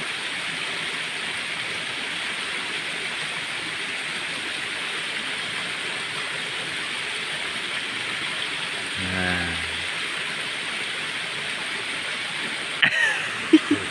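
A steady, even hiss of outdoor background noise, with a brief low murmur about nine seconds in and a few sharp clicks near the end.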